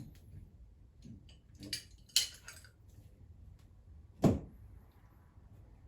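A few sharp metallic clinks and knocks from adjustable spanners and a windscreen wiper arm being bent and handled, the loudest about two seconds in and again just past four seconds.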